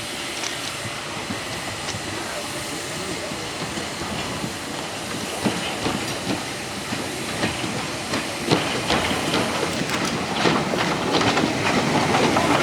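Train hauled by the A1 Pacific steam locomotive 60163 Tornado running on the track, its wheels clicking over the rail joints. The clicks come thicker and the sound grows louder toward the end as the train draws closer.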